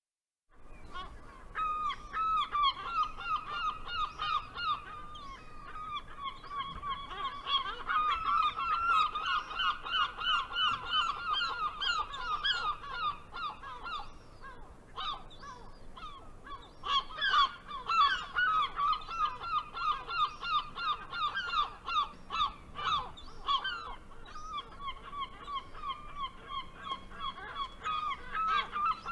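Gulls calling in rapid, repeated, honking notes, several a second, overlapping, with a brief lull about halfway through.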